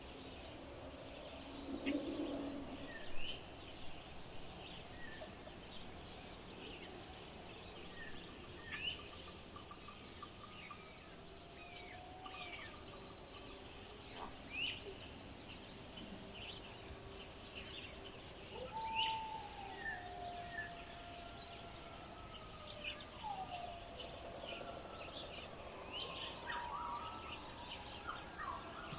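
Birds calling over a steady background hiss: many short high chirps and several longer whistled notes that slide in pitch, with a brief lower sound about two seconds in.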